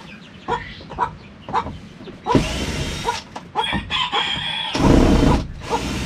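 Hens clucking in short regular calls, then a cordless drill-driver whirring in several short bursts from about two seconds in as screws are backed out of wood.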